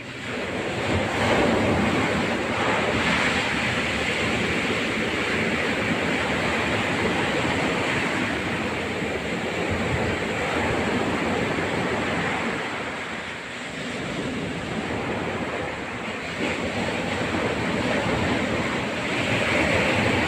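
Sea waves washing onto the shore in a continuous rushing wash that swells and eases, with wind buffeting the microphone.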